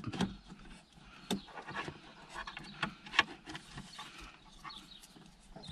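Hands handling car wiring and a plastic insulation-displacement splice connector: faint rustling and scattered small clicks, with one sharper click about three seconds in.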